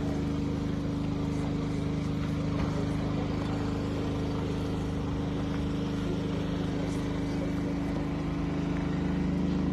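A steady low engine-like hum, made of several constant pitched tones under an even background hiss.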